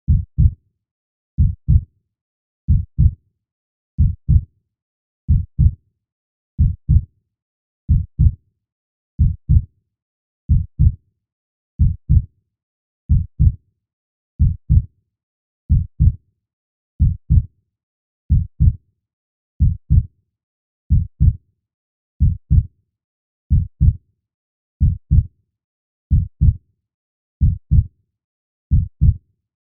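Heartbeat, a steady double thump (lub-dub) repeating about every 1.3 seconds, slow and even, with silence between the beats.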